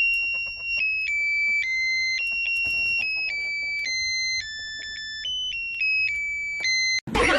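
High electronic beeping melody, like a ringtone tune, made of pure tones that step from note to note every third to half second.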